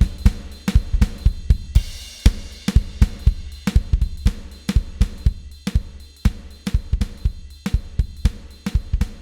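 A recorded drum kit groove (kick, snare, hi-hat and cymbals) played back through an Allen & Heath GL2400 analog mixing console, with the 80 Hz low shelf EQ shaping a heavy low end. The signal was clipping a little.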